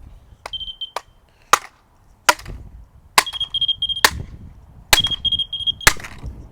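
A stick whacks a smoke detector about eight times in sharp, single blows. In between, the detector's high-pitched alarm tone sounds three times, each beep lasting about half a second to a second.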